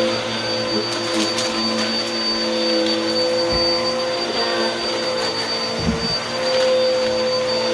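Vacuum cleaner running steadily with a constant motor whine while it sucks up crunchy debris: a few crackles about a second in and a couple of low bumps later.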